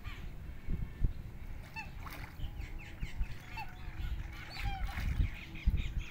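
Birds calling: a string of short honking and chirping calls, some sliding in pitch, over low rumbling noise.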